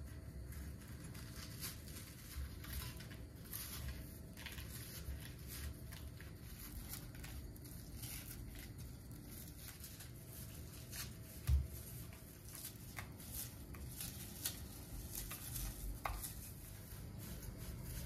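Crisp baked pastry sheet being crumbled by hand into a glass bowl: dry flakes crackling and snapping in many small irregular bursts. There is a dull thump about halfway through.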